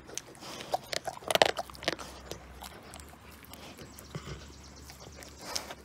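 Rottweiler gnawing on a giant scapula bone: irregular crunches and scrapes of teeth on bone, with the loudest cluster about a second and a half in and fainter ticks after.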